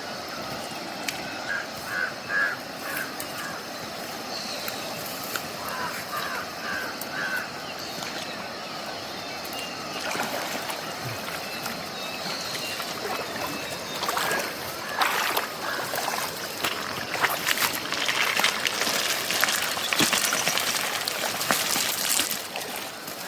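River water running steadily, with a few short chirping calls in the first several seconds, then irregular splashing and sloshing in the water from about halfway through, busiest near the end.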